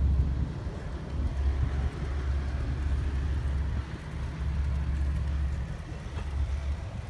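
Wind buffeting the microphone of a camera carried on a moving bicycle: a gusty low rumble that drops away briefly now and then.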